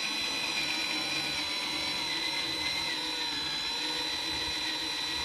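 Cordless variable-speed screwdriver with a metric hex bit running steadily, driving a roof-rail screw into the plastic body, with a high steady whine.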